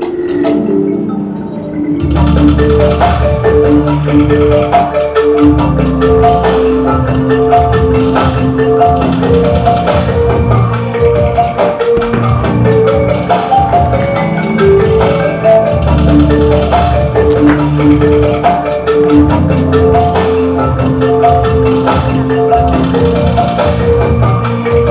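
Instrumental music: a repeating melody of short struck notes, with a low bass line and percussion coming in about two seconds in.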